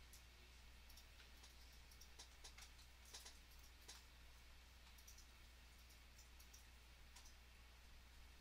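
Near silence with faint, irregular clicks from a computer mouse and keyboard over a low steady hum.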